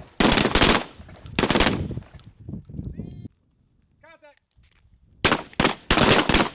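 Rifle fire on an outdoor range: quick strings of sharp shots in bursts, each followed by an echo tail, with a pause of about two seconds in the middle before a second flurry of shots. A faint short call is heard during the pause.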